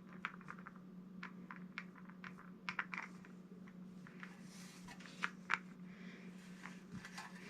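Foam paint roller rolling paint onto a metal sign's raised lettering with light pressure, giving faint, irregular sticky clicks and crackles over a steady low hum.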